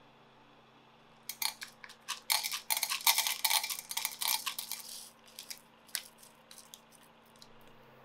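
Small wax pellets poured from a cup into an enamel measuring jug: a dense clattering rattle of beads hitting the enamel, which thins out to a few scattered clicks near the end.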